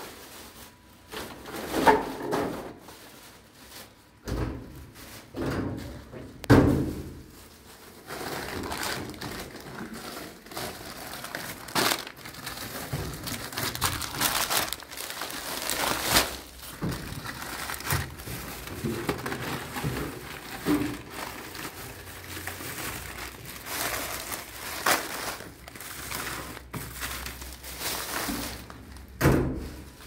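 Irregular knocks and thuds with crinkling and rustling, as of objects being handled and set down, the sharpest knocks about 2, 6, 12 and 29 seconds in.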